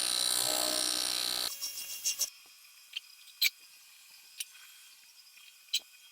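AC TIG welding arc on aluminum buzzing steadily, then cutting off about a second and a half in, followed by a few scattered light clicks and ticks.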